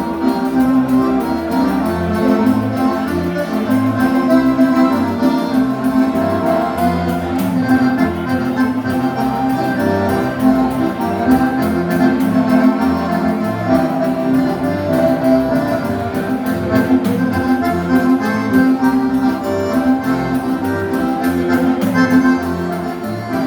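Instrumental gaúcho dance music played live: an accordion carries the melody in held chords over a bass line and a steady beat.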